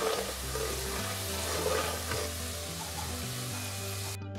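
Namkeen dough pieces deep-frying in hot oil in a steel kadhai, a steady sizzle, with a metal spatula stirring them. Background music with low held notes plays underneath. The sizzle cuts off suddenly about four seconds in.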